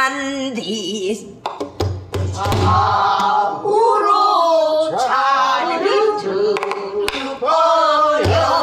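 A woman singing pansori in a full, wide-vibrato voice. She accompanies herself on a buk barrel drum struck with a stick, with a few drum strokes around two seconds in and again near the end.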